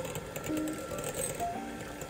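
Electric hand mixer running, its beaters whisking eggs in a glass bowl, under background music with short held melody notes.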